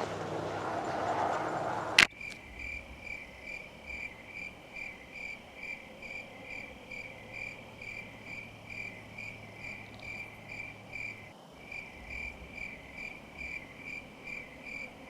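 A rushing noise for about two seconds, cut off by a sharp click. Then a cricket chirps on in an even, repeating rhythm.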